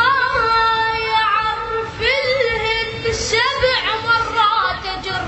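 A single voice singing a wavering, ornamented melody with long held notes that bend and glide between pitches.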